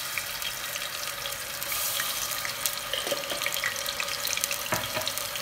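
Ginger-garlic paste sizzling in hot mustard oil in an aluminium pressure cooker, a steady hiss with small crackles. A couple of light knocks come about three and five seconds in.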